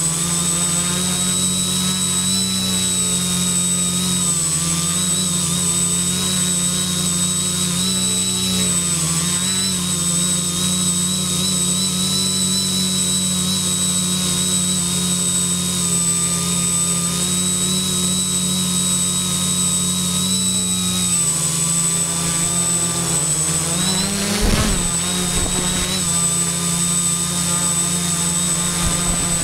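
Quadcopter's electric motors and propellers whining steadily in flight, the pitch shifting a little as the motors adjust. About 24 seconds in the pitch drops and climbs back sharply once.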